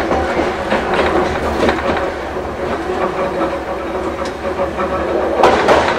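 Hankai Mo 161-type tram running, heard from on board: the steady whine and growl of its nose-suspended traction motors and gears, with wheel clicks over the rails. The running noise grows louder near the end.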